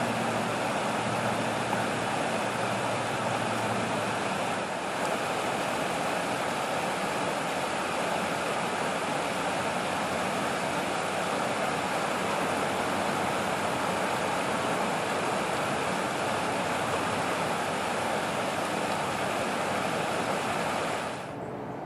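Steady rushing of flowing stream water, with no duck calls heard. It turns softer and duller in the last second.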